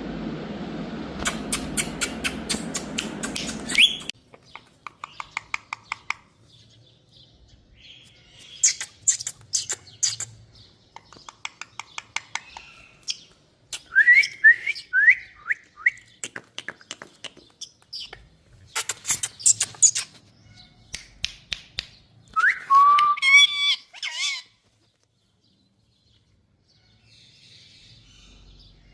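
Indian parrot chirping, with bursts of rapid clicking trills, short rising chirps and a longer wavering call, broken by pauses. For the first four seconds a steady rushing noise runs under it and stops suddenly.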